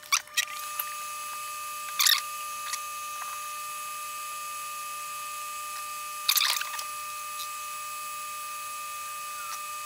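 Small handling clicks and rustles of tweezers and a soldering iron working on a small circuit board: a short cluster about two seconds in and another about six seconds in. A steady high-pitched electronic whine runs underneath.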